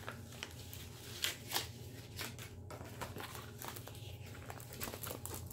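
Crinkling and rustling of a diamond painting kit's plastic-wrapped canvas being handled, a string of short crackles with two louder ones about a second and a half in.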